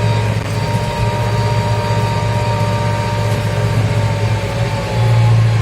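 Tractor diesel engine running steadily under heavy load while pulling a plough through soil, with a low drone and a fainter steady whine above it.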